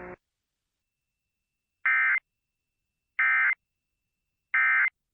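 Emergency Alert System end-of-message data bursts: three short, identical bursts of warbling digital tones about 1.3 s apart, marking the close of the Severe Thunderstorm Warning alert.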